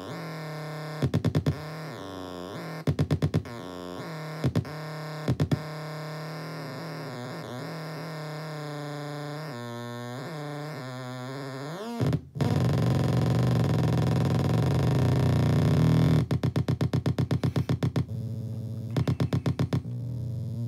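Circuit-bent noise box with a light resistor, playing a steady electronic drone whose tones waver and bend up and down as a hand moves over its light sensor, broken by short bursts of rapid stuttering pulses. About twelve seconds in it cuts out for a moment and comes back louder and buzzier, then breaks into fast chopped pulses near the end.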